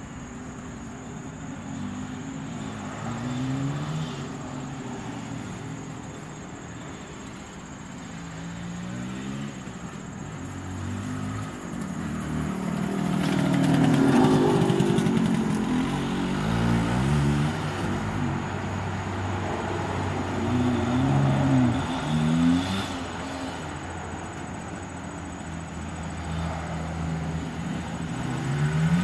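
Suzuki A100's small two-stroke single-cylinder engine running as the motorcycle rides around, its pitch rising again and again as it accelerates through the gears. It is loudest about halfway, as it passes close by, then fades as it rides off, and grows louder again near the end.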